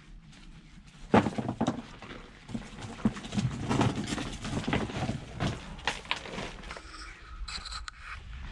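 A loose hinged panel being moved aside and thrown down on the floor: a loud knock about a second in, then a few seconds of clattering and scraping.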